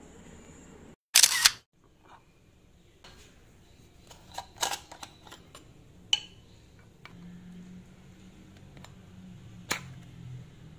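Small metal matcha tin being opened by hand: light metallic clicks and taps as the cap comes off and the ring-pull tab is lifted, with a sharp click near the end. A short loud burst about a second in is the loudest sound.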